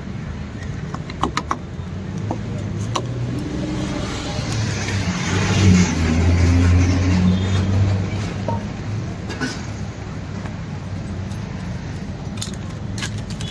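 A motor vehicle's engine passing close by, swelling to its loudest midway and fading, over steady street traffic. A few light clicks and taps of the knife and pizza-cutter wheel cutting the paratha.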